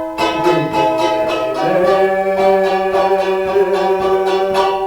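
Charango strummed in a steady rhythm, about four strokes a second, changing chord a little under two seconds in.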